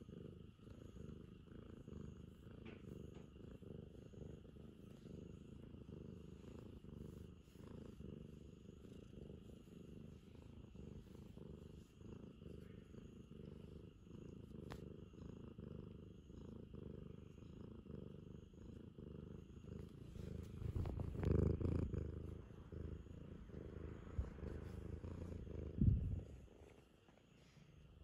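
Ragamuffin cat purring steadily right by the microphone while being stroked. About twenty seconds in, louder rustling and bumps come over the purring, with a sharp knock near the end.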